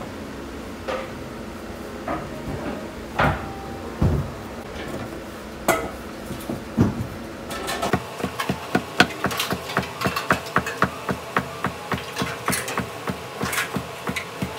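Large noodle knife chopping through folded udon dough onto a wooden board in a fast, even run of sharp knocks, several a second, starting about halfway through. Before that, a few scattered knocks from the noodles and board being handled.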